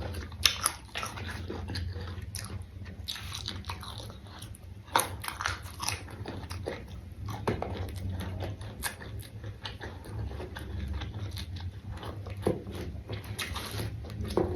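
Close-up crunching and chewing of young raw petai (stink beans), with sharp crunches at irregular intervals over a steady low hum.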